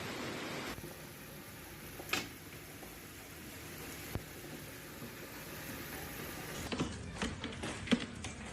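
Hailstorm: a steady hiss of heavy precipitation, then a quieter stretch with a couple of isolated knocks. In the last couple of seconds comes a quick irregular run of sharp knocks, as of hailstones striking hard surfaces.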